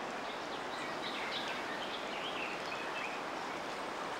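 River water flowing steadily, with a small bird chirping faintly in short calls through the middle.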